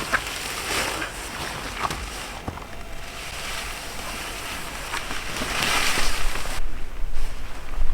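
Wind gusting outdoors and buffeting the microphone, with a steady rushing hiss and low rumble that grow stronger about six seconds in.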